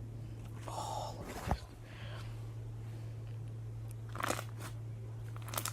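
Crunchy slime being squeezed and worked by hand, giving short crackling pops about a second in, again around four seconds and near the end, over a steady low hum.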